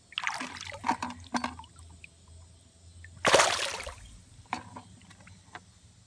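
Shallow stream water splashing as a smallmouth bass is released by hand: a few small splashes, one louder splash a little past three seconds in, then a few lighter ones.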